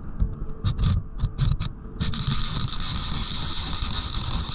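An angler's forearm rubbing and knocking against the camera as he works the rod, heard as scattered scrapes and clicks over a low rumble. About two seconds in, a steady hiss sets in.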